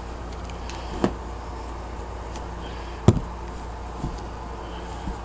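T-shirts being handled and lifted out of a clear plastic storage tote: a few light knocks, the sharpest about three seconds in, over a steady low hum.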